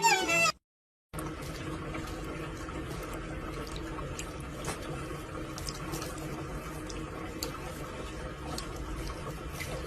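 Steady running water, like a tap left on, with a few faint clicks. Music cuts off about half a second in, and the water starts after a short silent gap.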